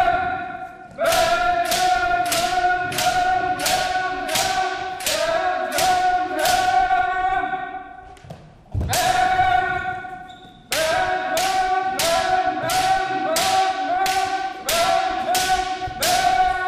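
Bamboo shinai striking the men (head protector) in fast runs of about two to three strikes a second, over a long held kiai shout, in the pattern of kendo kirikaeshi. Two runs, broken by a short pause and a single heavy strike about eight seconds in.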